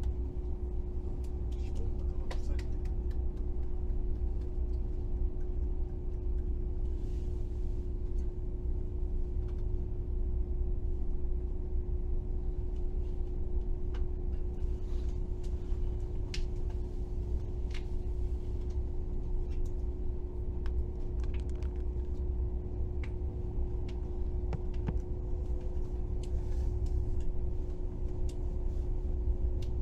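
KTX high-speed train running at speed, heard on board: a steady low rumble with a constant hum and a few faint scattered clicks.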